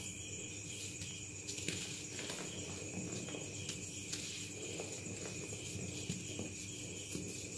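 Dyed gym chalk blocks, not fully dried, being squeezed and crumbled in bare hands: soft crunching with many small scattered crackles as the chalk breaks into powder.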